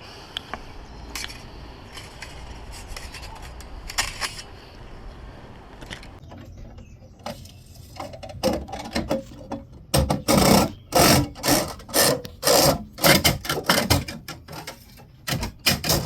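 Fish tape scraping and rubbing as it is fed down into an electrical conduit, with a quiet stretch of light clicks, then a run of loud, irregular rasping strokes in the last six seconds.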